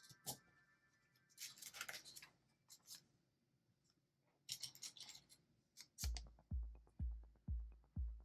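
Small plastic LEGO pieces click and rattle on the table as they are picked out and handled. About six seconds in, background music starts with a steady bass beat, two beats a second, which is the loudest sound.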